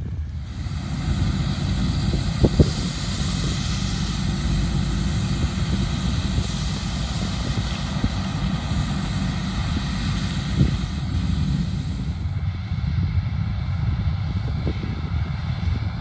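Claas Lexion 760 combine harvester running steadily while harvesting corn, a continuous low machine drone with a broad hiss over it and a couple of brief knocks about two and a half seconds in. About twelve seconds in the hiss drops away, leaving the low drone with faint steady whining tones.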